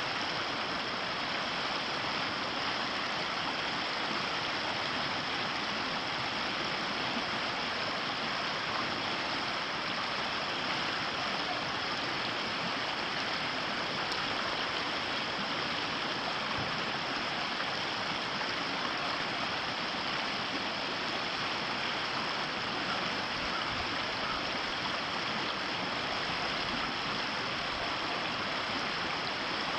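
Ōtakine River flowing: a steady, unbroken rush of running water.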